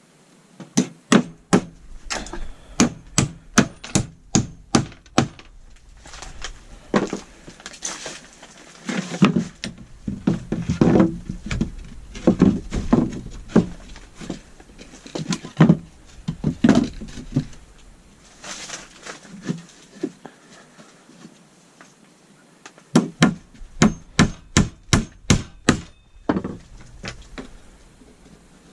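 Hammer driving nails into wooden floorboards: a fast run of strikes, about three a second, near the start and another near the end, with irregular wooden knocks and thuds in between.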